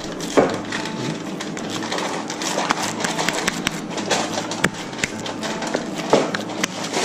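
Aluminium foil being pulled off the roll and torn into a sheet, with irregular crinkling and crackling throughout.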